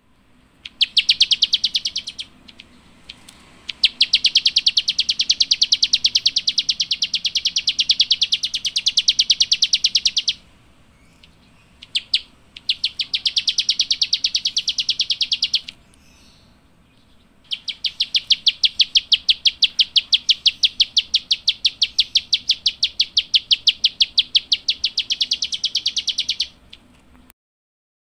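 A small songbird calling in rapid, even trains of high clicking chirps, a dry rattling "klik-klik" call. Four long runs, the longest lasting several seconds, are split by short pauses.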